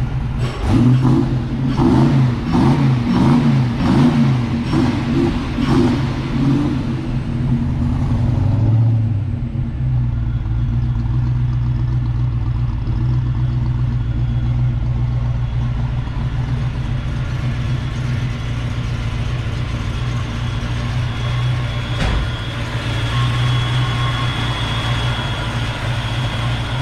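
A car engine running, its pitch wavering up and down for the first several seconds, then holding steady at idle. A single sharp knock comes about twenty-two seconds in.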